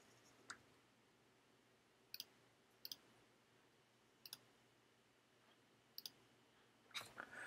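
About six single computer mouse clicks, a second or two apart, over near silence, as buttons in a software installer are clicked through.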